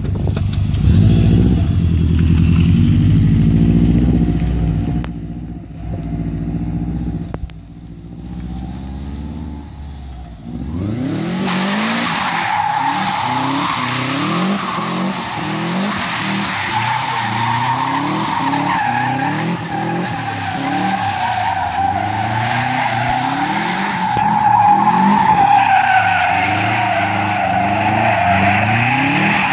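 Subaru Impreza's flat-four engine running close by for the first ten seconds. From about eleven seconds in the engine revs up and down over and over while the tyres squeal without a break as the car spins donuts.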